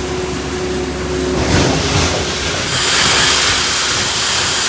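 Farm machinery engine running steadily. About a second and a half in there is a jolt, and from about two and a half seconds in a loud, steady, rushing hiss takes over.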